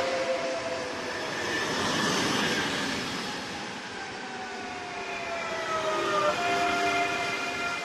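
Double-deck electric multiple unit running past and away. Its traction motors whine in several tones over the noise of wheels on rail. One whine slides slowly down and steps back up about six seconds in.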